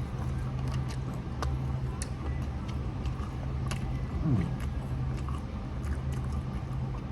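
Crunching and chewing of a crispy fried chicken wing, with scattered short crackles over a steady low hum. A short low sound slides downward in pitch a little past four seconds in.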